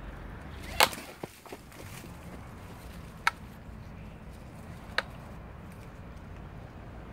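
A few sharp snaps of dry twigs as a dog pushes into undergrowth: the loudest about a second in, then single cracks at about three and five seconds.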